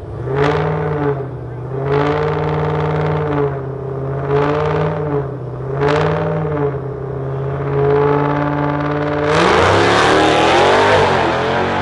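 A drag car's engine revving in swells about every two seconds, each blip rising and falling in pitch. About nine seconds in it opens up to full throttle with a sudden loud rush.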